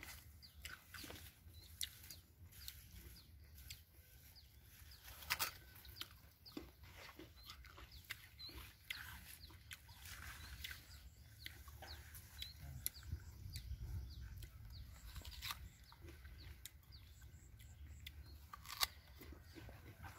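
Quiet outdoor sound of kèo nèo (yellow velvetleaf) stalks being picked by hand: scattered short snaps and rustles of leaves and stems, the sharpest about five seconds in and near the end.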